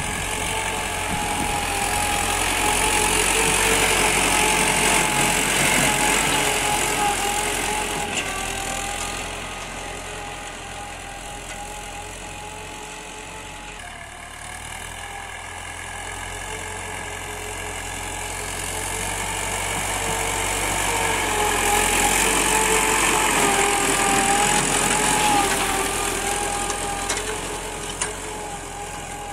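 Diesel engine of a 1967 Belarus tractor running steadily under load while pulling an 18-disc harrow through ploughed soil. It grows louder twice as the tractor comes near and fades between.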